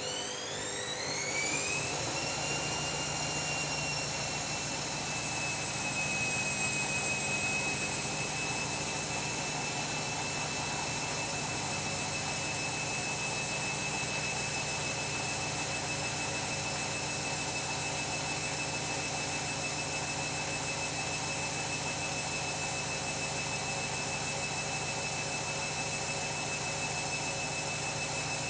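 Washing machine drum speeding up into a spin: the motor's whine rises in pitch over the first two or three seconds, then holds a steady high whine at full spin speed.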